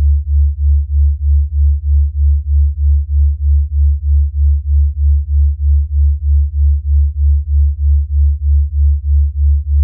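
A low, steady sine tone that pulses evenly about three times a second, with no break. It is an electronic delta-wave tone meant to aid sleep.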